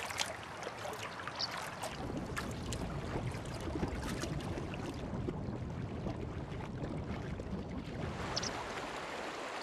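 Water sounds of a European otter swimming in a stream: gentle lapping with scattered small splashes and a low rumble in the middle, giving way to the steady rush of flowing river water near the end.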